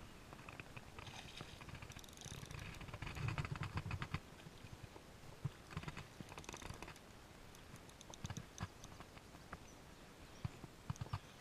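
Spinning fishing reel being handled and wound in short spells, a rapid fine clicking that comes and goes several times, with a few sharper single knocks.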